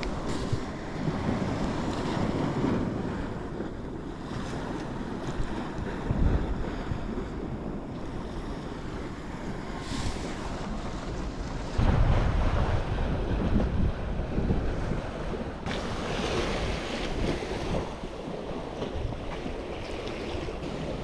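Strong wind buffeting the microphone, with sea waves washing in behind. The gusts get louder about halfway through.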